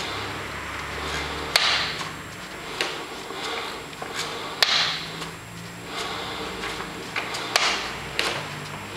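Strange noise from the rear brake drum of a UM Matrix 150 scooter: a sharp knock about every three seconds, three in all, each followed by a brief scraping swish, with fainter clicks between and a low hum underneath.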